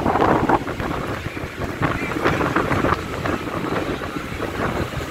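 Electric local train (EMU) running through a station, its wheels rumbling on the rails with scattered clacks, and wind buffeting the microphone at the open coach door.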